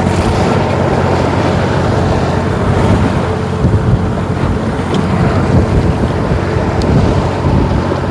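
Fishing boat's engine running steadily, with wind buffeting the microphone and the wash of a rough, swelling sea.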